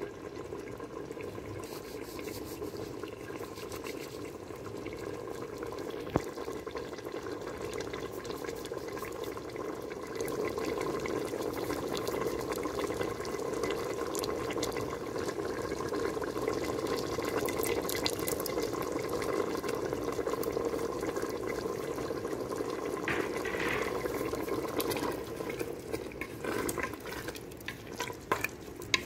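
Chickpea curry boiling in a pot: a steady bubbling hiss. Near the end a wooden spoon stirs the chickpeas, with scraping and clacks against the pot.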